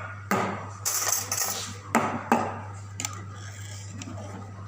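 Cups and cutlery clinking: a few sharp knocks and clinks, with a brief hiss about a second in, over a steady low hum.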